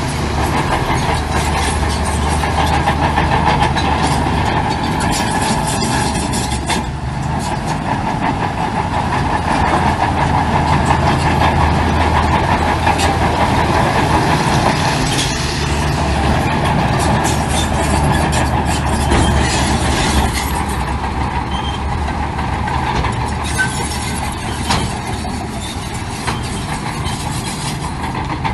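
Heavy diesel earthmoving machinery running steadily, with scattered clanks and knocks, more of them in the second half.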